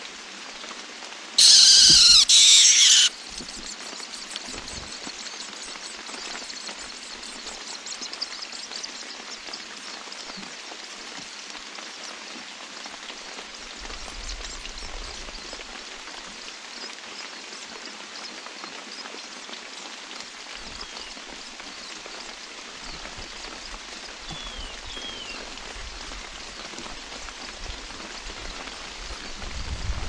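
Steady rain falling, an even hiss. About a second and a half in comes a loud, harsh burst lasting under two seconds, and near 25 seconds two faint, short falling whistles.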